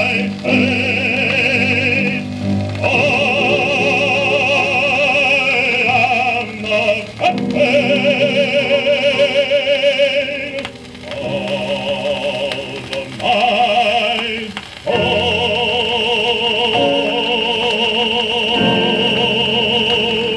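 Baritone voice singing with vibrato over accompaniment, played from a 78 rpm shellac record. The phrases break off twice, and the last note is held long from about three-quarters of the way through.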